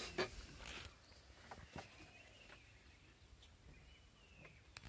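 Quiet outdoor ambience with a few faint bird chirps, each a short rising-then-falling note, and scattered light clicks.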